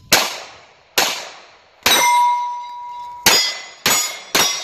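Pistol-caliber carbine firing six shots at steel plates, the hit plates ringing after the shots, one ring lasting over a second. The first shots come about a second apart, the last three faster, about half a second apart.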